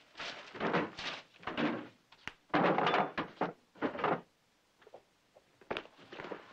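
Drawers and furniture being rummaged through: a string of short scraping slides and knocks as drawers are pulled open and pushed shut and things inside are shuffled, with one sharp click about two seconds in.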